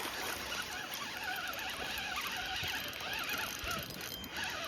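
Fishing reel being cranked, its gears whirring and clicking steadily as line is wound in.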